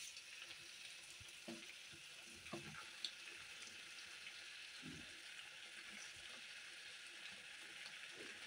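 Faint, steady sizzle of spice masala cooking in a wok, with a few soft thuds and rustles as shredded cabbage is tipped in from a plastic bowl.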